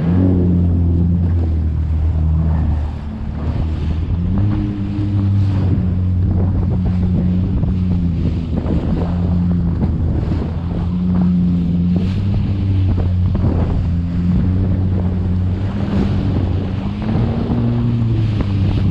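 Jet ski engine running at low speed, its pitch stepping up and down several times as the throttle is worked, with water rushing past the hull and wind buffeting the microphone.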